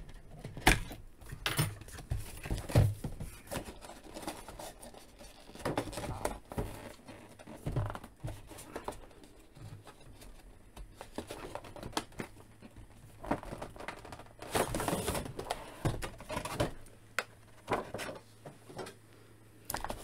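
Cardboard action-figure window box and its clear plastic tray being handled as the box is opened and the tray slid out: scattered taps and scrapes on cardboard with crinkling of plastic. A longer stretch of rustling comes about three-quarters of the way through.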